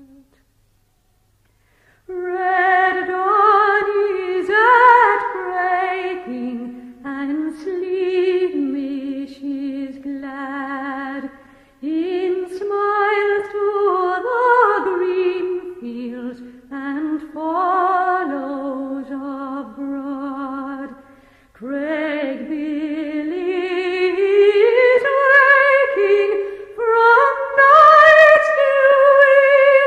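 A woman's voice singing a slow air unaccompanied, in long held notes with vibrato and short breaks between phrases. The singing begins about two seconds in, after a brief silence.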